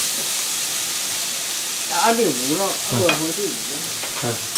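Ground pork and chopped kohlrabi sizzling in hot oil while being stir-fried in a pan. About two seconds in, a wavering pitched sound rises and falls for about a second and a half over the sizzle.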